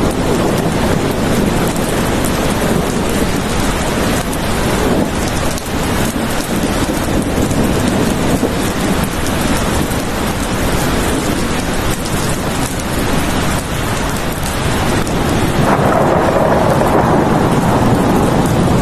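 Steady heavy rainfall, an even hiss across all pitches, with a deeper rumbling swell building near the end.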